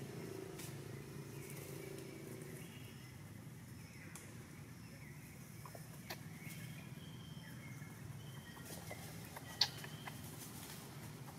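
Quiet outdoor background: a low steady hum with scattered short, high chirps and a few sharp clicks, the loudest click near the end.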